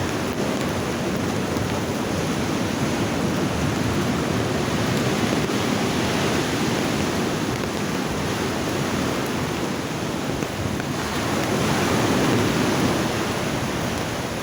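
Storm noise of heavy rain and wind: a dense, steady hiss that swells a little about three-quarters of the way through.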